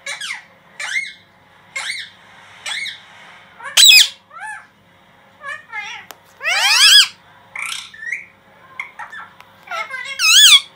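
Indian ringneck parakeets calling: a string of short squawks about once a second, some with a quavering, warbling pitch. The loudest come about four and seven seconds in and just before the end.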